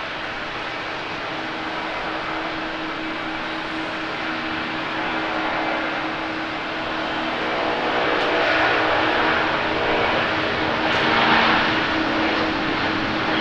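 Boeing 767's twin jet engines at takeoff thrust during the takeoff roll: a rushing jet noise with a steady low hum, growing louder as the airliner accelerates closer, loudest about three quarters of the way through.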